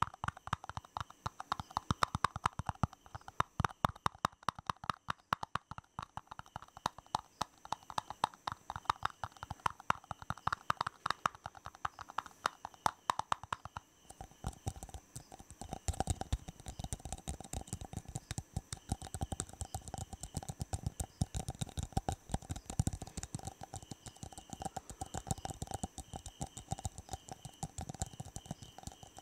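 Very fast, aggressive tapping on hard objects, many taps a second, for ASMR. About halfway through, the tapping moves to a different surface with a lower, more resonant ring.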